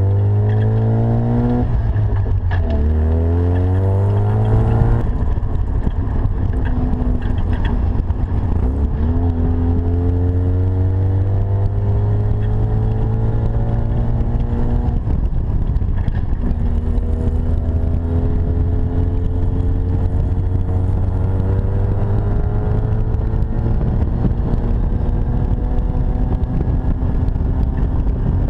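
Engine of a Centaur 7, an open Lotus Seven-style sports car, pulling hard as the car accelerates. Its pitch climbs and falls back with upshifts about two and a half and five seconds in. It then climbs more gently, eases off briefly about halfway through, and rises slowly again near the end.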